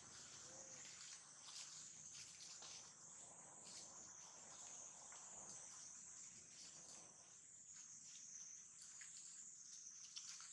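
Faint, steady, high-pitched drone of insects, with small scattered ticks and rustles over it.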